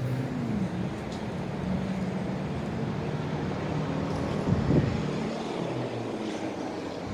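Road traffic with a vehicle engine running as a steady hum, its pitch dipping slightly near the start. There is a brief louder swell about four and a half seconds in.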